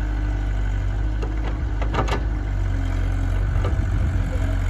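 Heavy diesel machinery engine running steadily at low revs, with a short run of sharp knocks or clanks about two seconds in.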